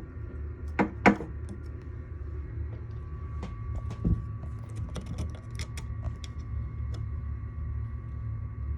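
Small metal clicks and taps as clamp-kit stoppers are screwed in with an M3 Allen key, with two sharper knocks about a second in and another near four seconds. A steady low hum runs underneath.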